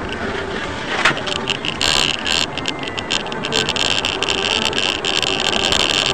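Car driving at highway speed, heard from inside the cabin: steady road and engine noise, with a short knock about a second in and a harsh hiss joining about two seconds in.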